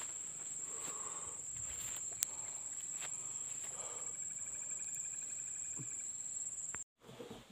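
Insects droning steadily with a high, thin whine, cut off abruptly about seven seconds in. There is a single sharp click about two seconds in.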